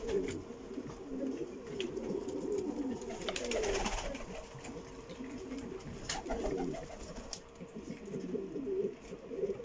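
Several Norwich Cropper pigeons cooing over one another in low, overlapping calls, with a short rustle about three and a half seconds in.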